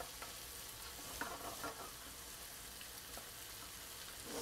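Chicken breast pieces and spices sizzling in a frying pan over high heat while being stirred with a wooden spoon. A steady, fairly quiet sizzle, with a few light knocks of the spoon against the pan.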